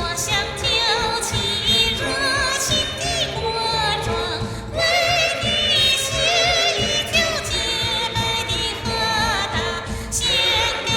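A woman singing a high, wavering Tibetan-style vocal line in several long phrases over a backing track. Through the cheap condenser headset microphone, the high notes take on a slightly electronic, auto-tune-like edge.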